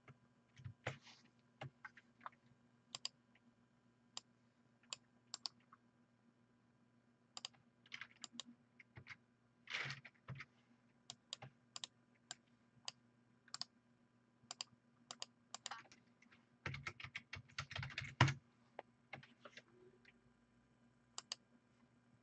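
Computer keyboard typing in scattered keystrokes and short bursts, with a quicker run of keys about three-quarters of the way through, over a faint steady hum.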